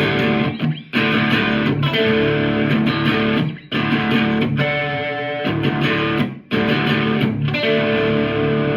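Yamaha Revstar electric guitar playing sustained strummed chords. The sound cuts out briefly three times: about a second in, around three and a half seconds, and about six and a half seconds in.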